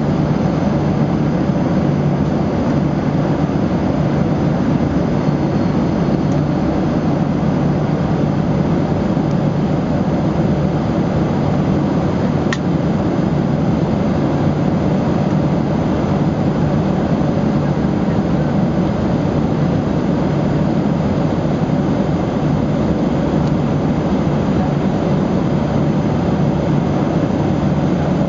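Steady jet airliner engine and airflow noise, as heard inside a cabin in flight, holding one even level with no rise or fall.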